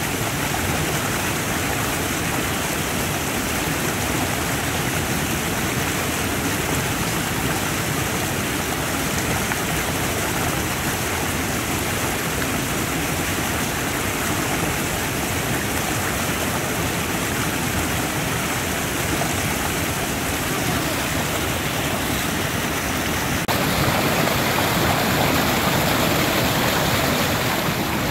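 Rain-swollen creek rushing over rapids: a steady, full water noise. It turns abruptly louder and brighter near the end.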